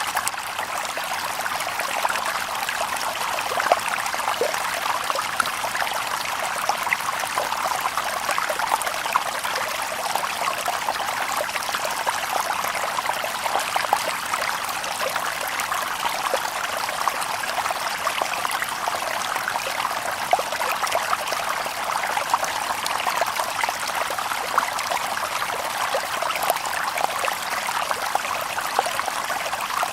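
Shallow river water babbling over stones: a steady splashing rush dotted with many small plinks and gurgles, with no birds.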